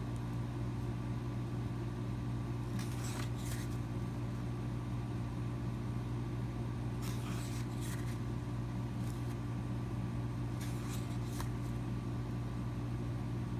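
Paper being handled: a few brief rustles as pages of the CD's booklet are turned, over a steady low hum.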